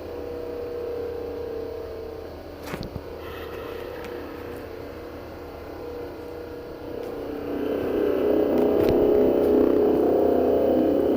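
Unexplained droning in the sky: several steady low tones holding together, swelling louder about eight seconds in, with a couple of sharp clicks.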